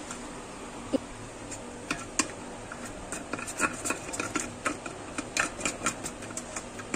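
Metal spoon stirring a thick spice marinade in a stainless steel bowl, clinking and scraping against the steel in quick irregular ticks. The ticks are sparse at first and come thick and fast from about halfway.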